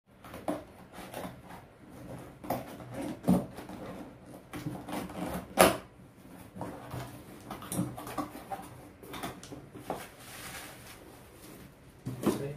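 Unboxing a cardboard parcel by hand: scissors cutting through packing tape, cardboard flaps being pulled open and plastic wrapping rustling as the item is lifted out. A series of irregular clicks and rustles, with one sharp knock about five and a half seconds in.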